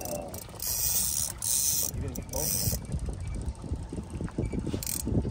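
Fishing reel ratcheting in two runs about one to three seconds in and once more briefly near the end, over the low hum of an outboard motor trolling the boat.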